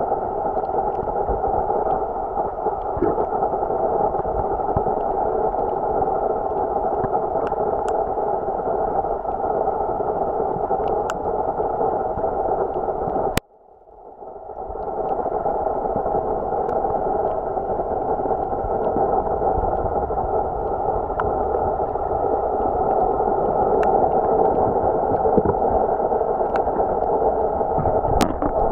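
Steady muffled water rush picked up by an underwater camera, with scattered faint clicks. About halfway through it cuts out suddenly, then fades back in over a second or two.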